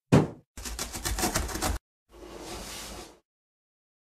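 Cartoon sound effects for a falling cardboard box: a sharp thump as it lands, then about a second of rapid rattling knocks, then a whoosh.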